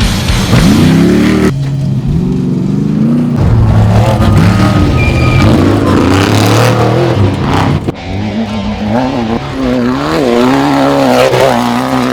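Off-road race vehicle engine running hard and revving: the pitch climbs steeply at the start, holds steadier, then rises and falls again and again in the last few seconds. Music plays underneath.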